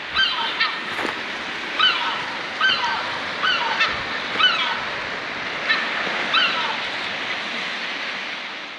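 Seabirds calling from a cliff colony: short calls, one every second or so and sometimes in quick pairs, over the steady wash of surf below. The sound fades out near the end.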